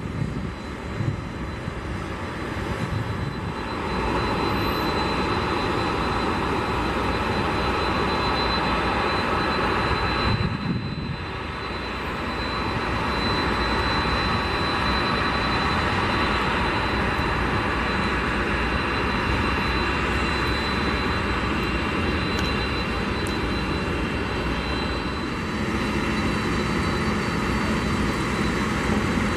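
Twin turboprop engines of an Embraer EMB-110 Bandeirante running as it taxis: a steady engine rush with a high, thin turbine whine. Near the end the sound shifts to a lower steady hum.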